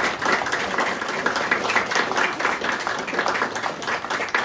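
Audience applauding, many hands clapping without a break.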